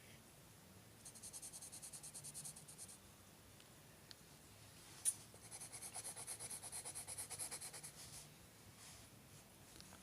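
A drawing tool scratching quickly back and forth on paper, about seven strokes a second, in two spells of shading or colouring. A single sharp click comes between them.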